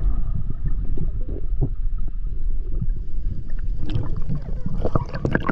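Sea water sloshing and gurgling around a swimmer and his small board, with a heavy low rumble on the microphone.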